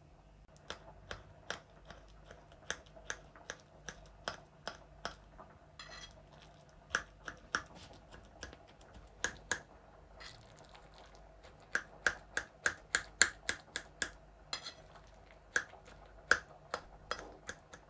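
A utensil tapping sharply and irregularly against a plate or board as roasted eggplant flesh is chopped and mashed fine, with a faster run of taps in the later part and a few brief scraping sounds.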